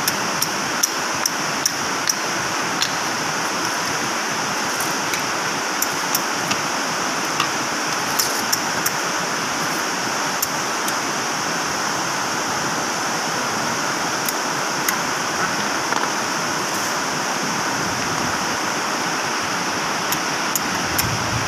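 A steady rushing noise with scattered sharp clicks and light taps of metal tools and wheel parts being handled while a reach truck's load wheel is taken apart; the clicks come thickest in the first few seconds and again near the end.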